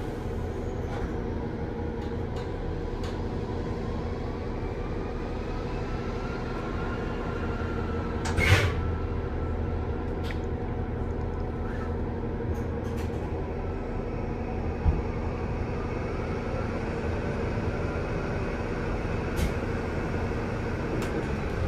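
Interior of a 2016 NovaBus LFS CNG city bus, its Cummins 8.9-litre ISL-G six-cylinder natural-gas engine running steadily, with a faint whine that rises and falls in pitch. A short, loud burst of noise comes about eight seconds in, and a single thump about fifteen seconds in.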